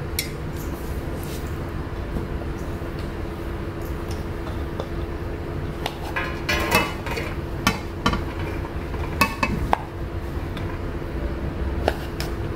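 Plastic rice paddle scraping cooked rice out of a bowl onto an enamel tray, with scattered knocks and clinks of the paddle and bowl against the tray, most of them in the middle of the stretch. A steady low hum runs underneath.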